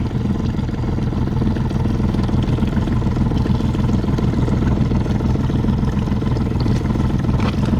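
A boat's engine running steadily, a constant low hum with no change in pitch or level.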